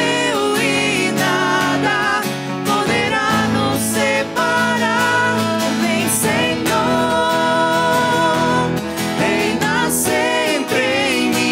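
A live Christian worship song: voices singing over strummed acoustic guitar and electric keyboard.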